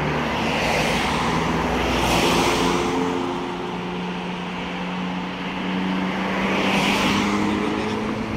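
Road traffic: cars passing by, swelling and fading about three times, over the steady hum of a car engine idling.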